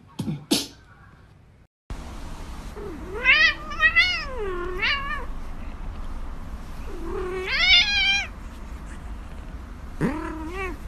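Domestic cat meowing: a run of long, wavering meows a few seconds in, another a couple of seconds later, and a shorter one near the end, over a steady low hum.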